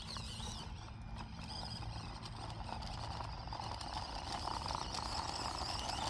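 Axial SCX24 Deadbolt 1/24-scale RC rock crawler's small electric motor and drivetrain whining as it works its way over loose dirt and rocks, getting louder in the last couple of seconds.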